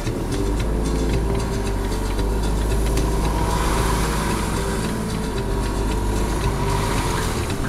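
Car engine running at a slow crawl, heard from inside the cabin as a steady low rumble.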